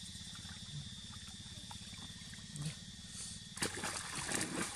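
A macaque splashes and scuffles through shallow water close by in a noisy burst of about a second, starting about three and a half seconds in. Underneath is a steady high insect buzz.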